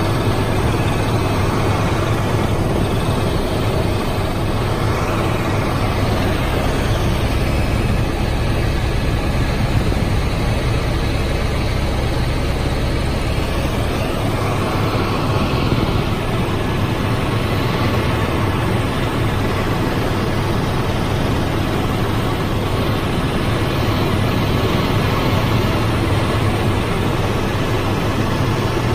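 Steady helicopter cabin noise: the engine and rotor running in level flight, heard from inside the cabin as a continuous deep rumble under a broad rushing noise. The deepest part of the rumble eases about halfway through.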